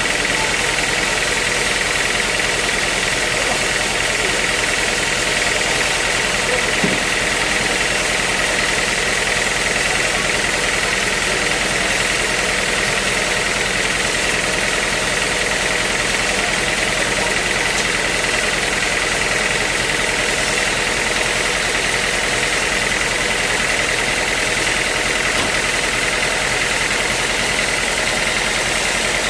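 Sawmill machinery running steadily: a continuous mechanical drone with a steady high whine over it that edges slightly higher near the end.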